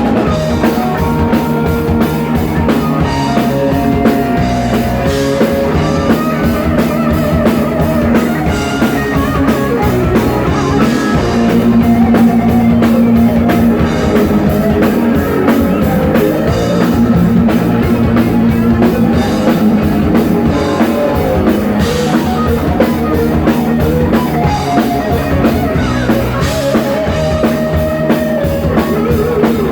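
Heavy metal band playing live: a drum kit and electric guitars, with melodic guitar lines over a steady, loud full-band sound.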